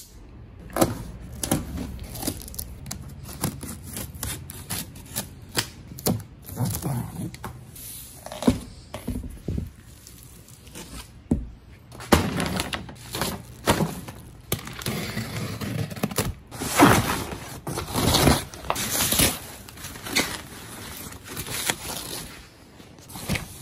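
Cardboard shipping box being cut open and unpacked: a knife blade scraping and slicing through tape and cardboard with knocks of the box flaps, then, about halfway through, a plastic bag and packing paper crinkling and rustling as the wrapping is pulled back.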